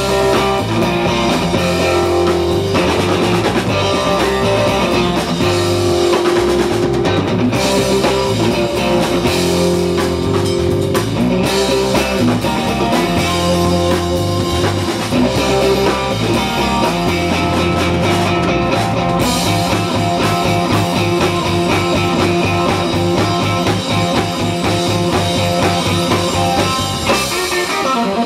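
Live rock band playing an instrumental passage: electric guitar over bass guitar and a drum kit. The bass drops out just before the end.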